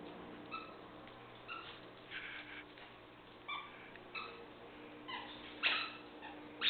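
Squeaky dog toy squeaking in short, irregular squeaks, about eight of them, as a Cairn terrier bites on it. The loudest squeaks come near the end.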